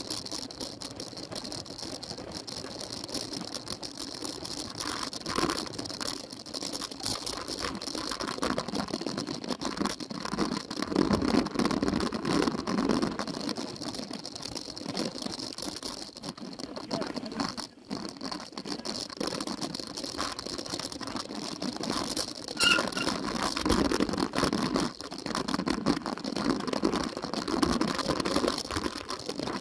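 Cyclocross bike rattling and clattering over a bumpy dirt course, heard through a camera mounted on the bike, with tyre and wind noise; the rattling grows louder in rougher stretches.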